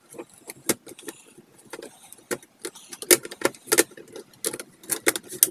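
Irregular series of sharp clicks and light knocks of plastic and sheet metal as a Dell OptiPlex 7010 USFF computer case is handled and its front bezel latched on.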